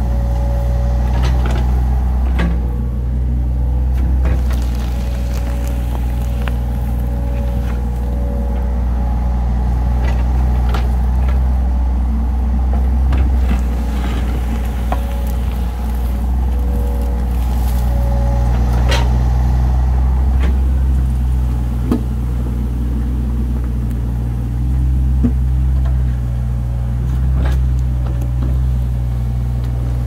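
Diesel engine of a compact earthmoving machine running steadily, its note changing with load partway through, with a few sharp knocks.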